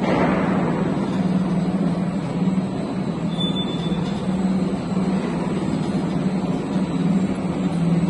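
Sectional garage door panel roll forming line running: its gear motor, gearboxes and chain-driven forming rollers make a steady mechanical drone with a low hum.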